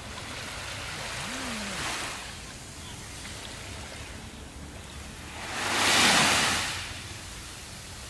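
Small waves breaking and washing up a sandy beach. One gentle wash comes in the first two seconds, then a louder one swells and fades about six seconds in.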